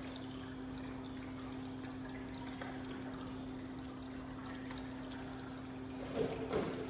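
Steady low electrical hum and faint hiss of room tone, with two brief bumps and a rustle about six seconds in as a rider swings onto a motocross bike on its stand; the engine is not running.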